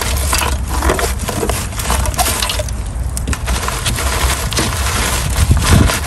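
Charcoal lumps clinking and shifting as a poker stirs a newly lit fire in a metal chiminea, with many small clicks and crackles over a steady low rumble. A louder knock comes near the end.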